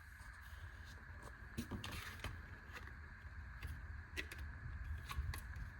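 Faint scattered clicks and light knocks of small objects being handled, over a faint steady high whine.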